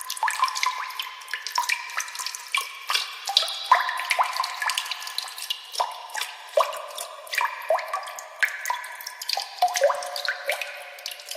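Water drops plinking, many quick irregular drips, each a short bright tone at a slightly different pitch.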